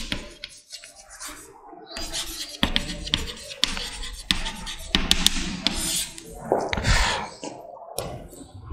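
Chalk writing on a blackboard: a string of sharp taps and short scratchy strokes, with one longer scrape about two thirds of the way through.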